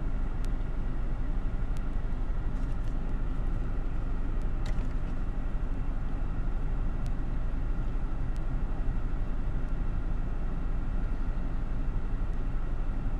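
Steady low rumble and hiss of a car heard from inside the cabin, with a few faint ticks.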